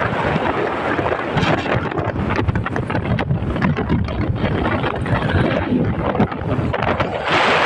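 Wind buffeting the microphone of a moving motorcycle, a steady rushing noise over the engine and road.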